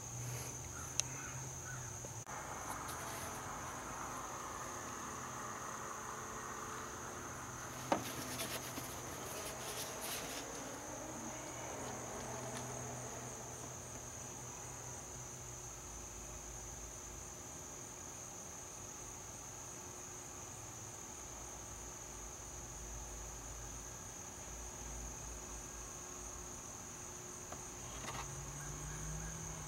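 Insects trilling steadily at a high pitch, with faint handling noise and two sharp clicks, about one and eight seconds in.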